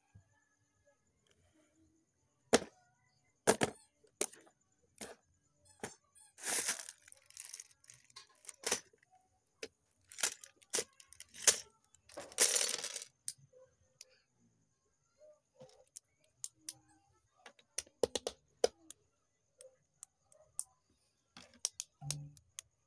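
Unboxing and building a small plastic brick set: sharp clicks and taps from the packaging, the crinkle of a clear plastic bag of bricks twice, at about six and twelve seconds in, then small plastic bricks clicking as they are handled and pressed together.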